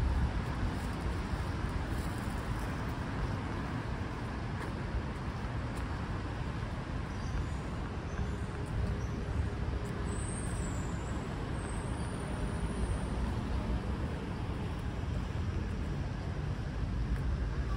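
Steady city road-traffic rumble, with a few faint high chirps about ten seconds in.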